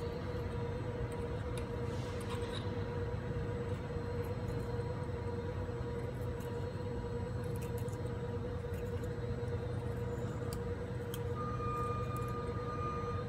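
A steady machine hum with a constant whine, joined by a second, higher whine about eleven seconds in. A few faint clicks from hand tools working on metal.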